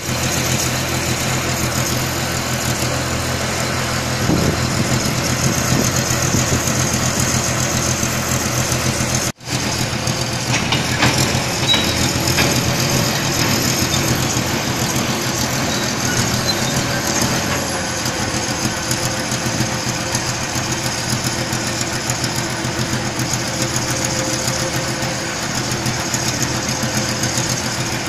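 Crawler-mounted mobile belt conveyor running, its engine giving a steady drone with a knocking clatter. The sound cuts out for an instant about nine seconds in, then goes on unchanged.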